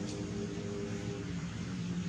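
A steady mechanical drone with several held tones, like a running engine; the higher tones drop away just over a second in, leaving a lower hum.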